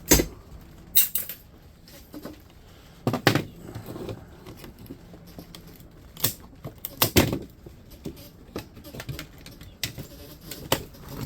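Irregular knocks, clicks and clatter of plastic and metal parts and tools being handled while a dehumidifier is taken apart, with the sharpest knocks near the start, about a second in, just past three seconds and around six to seven seconds.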